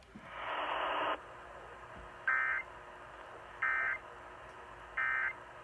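A second-long hiss of radio static, then three short, identical bursts of Emergency Alert System end-of-message data tones, a little over a second apart: the signal that the alert message has ended.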